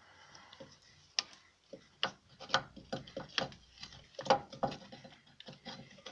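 Metal brake parts of a car's rear drum brake clicking and clanking as the freed brake shoes are handled and worked off the backing plate. The clicks are irregular and begin about a second in.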